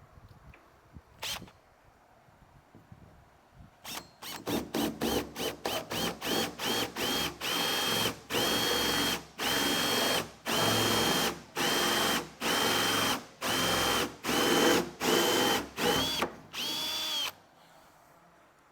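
Power drill run in repeated bursts as the trigger is pulsed: quick short bursts at first, then a dozen or so longer bursts of a steady whine. This is drilling holes through the car's firewall for the brake pedal assembly.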